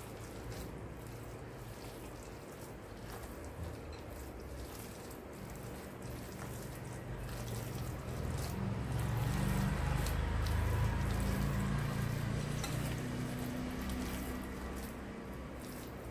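A hand squeezing and kneading wet minced-mutton kabab batter with egg and onion in a steel bowl, making irregular soft squelches. A low rumble swells and fades in the middle.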